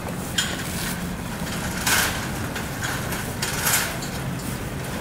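Snowy city street ambience: a low steady hum under three short, sharp clattering knocks, the loudest about two seconds in.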